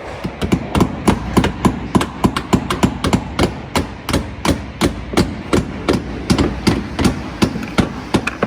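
A hammer driving long nails into wood framing, striking steadily at about three blows a second.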